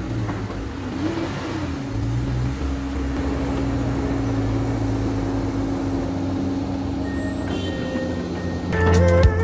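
Heavy diesel engine running steadily, its pitch lifting briefly about a second in. Music with drum beats comes in near the end.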